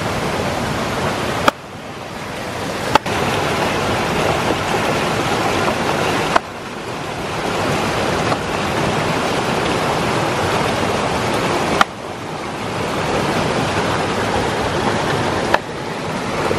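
Rocky forest stream rushing in whitewater over rocks: a steady loud rush of water, broken about five times by a sharp click and a brief dip in level.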